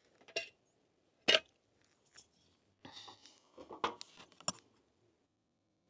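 A Ridge Monkey sandwich-toaster pan and a utensil being handled over a portable camping stove: a few light clicks and knocks, with one sharp click about a second in, a brief scrape about three seconds in, and a cluster of small clicks after it.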